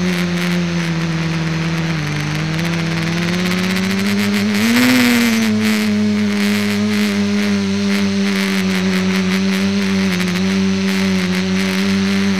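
Small multicopter's electric motors and propellers humming steadily, heard up close from the craft itself. The pitch drops a little about two seconds in, then rises and swells briefly around five seconds in before settling again.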